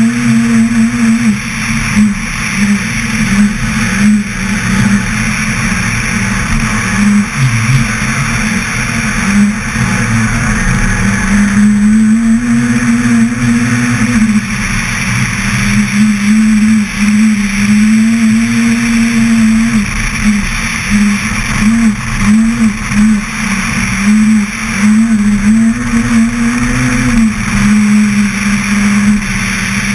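Citroën C2 R2 rally car's four-cylinder engine at full throttle, revving hard, rising through the gears and dropping back again and again as the driver shifts and lifts for corners. A steady rushing of tyres on the snowy road runs underneath.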